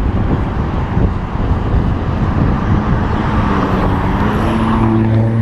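Highway traffic rushing past alongside the bike path. About halfway in, a passing vehicle's engine hum grows stronger, rising slightly in pitch toward the end.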